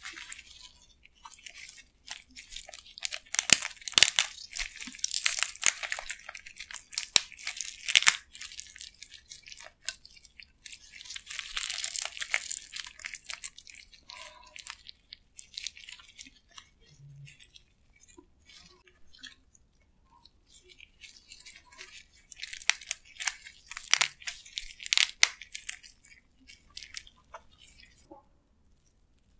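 Spicy marinated raw crab being bitten and chewed, its shell crunching and cracking. The crackling comes in three clusters, with quieter chewing and clicks between them.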